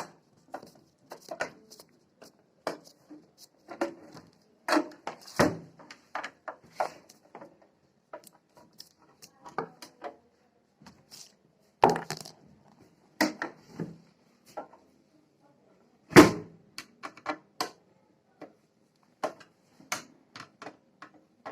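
Screwdriver working the screws out of a small amplifier's casing: irregular clicks, light scrapes and handling knocks of the tool and the case, with a few louder knocks, the loudest about three-quarters of the way through.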